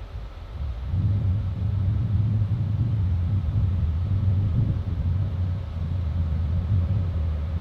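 Electric freight locomotive, Green Cargo's Mb 4007, approaching at the head of a train of covered hopper wagons: a steady low rumble that swells about a second in and holds.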